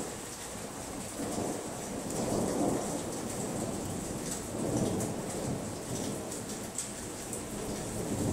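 Steady rain falling, with thunder rumbling in long rolling swells through the middle of the stretch.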